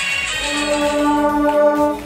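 Music: a song whose busy backing thins out, giving way about half a second in to one long held note.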